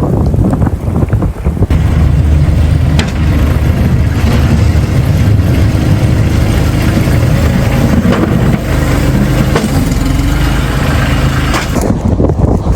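A vehicle engine running steadily under a rushing hiss, with wind buffeting the microphone at first; the sound changes abruptly about two seconds in and again near the end.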